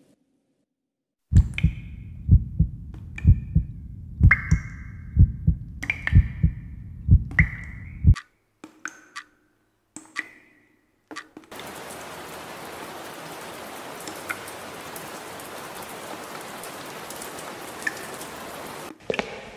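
Heartbeat-like low thumping, about two beats a second, with sharp high clicks over it; it cuts off suddenly after about seven seconds. A few isolated clicks follow, then a steady even hiss with faint ticks in it.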